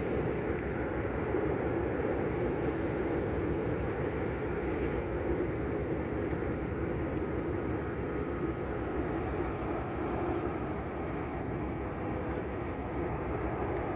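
Steady drone of an airplane flying overhead, with a constant low rumble underneath and a few faint high chirps.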